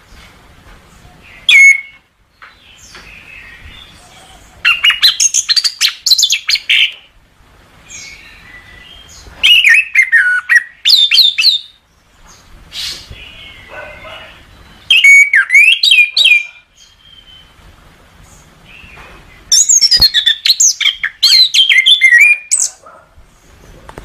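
Chestnut-capped thrush (anis kembang) singing: five loud phrases of rapid notes and sweeping whistles, separated by pauses of a few seconds. The first phrase, about a second and a half in, is short, and the longest comes near the end.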